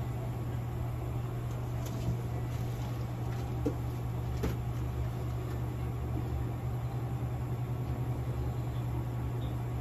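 A steady low hum with a few faint light clicks, and a slight pulsing in the hum in the second half.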